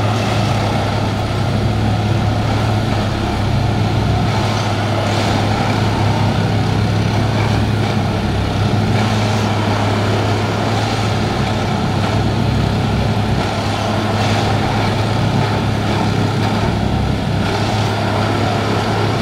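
Plasser Duomatic ballast tamping machine running at close range: a loud, steady engine drone with a low hum, with faint knocks every couple of seconds as it works the track.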